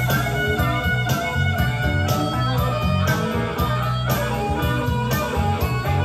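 A blues-rock song playing: an instrumental stretch of electric guitar over bass and drums, with no singing.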